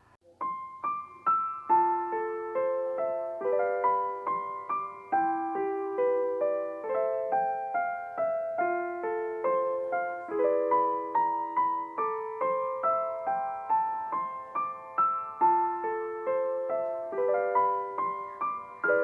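Background music: a gentle piano melody of quick, evenly paced notes.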